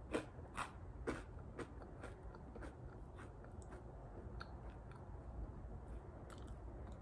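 Dry Kellogg's Eggo chocolate waffle cereal being chewed: faint crunches about twice a second, loudest in the first second and fading as the piece breaks down.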